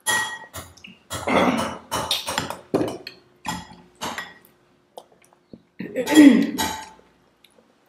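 Metal spoons scraping and clinking against glass bowls in irregular bursts as milk dessert is scooped out.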